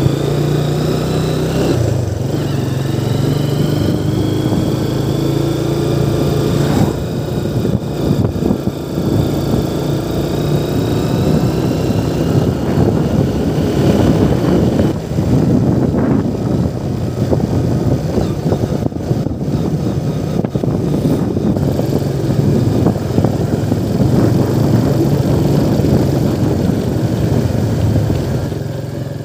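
Motorcycle engine running steadily as it rides along, heavy with wind and road noise. From about a quarter of the way in it turns rougher and more jolting as the road breaks up.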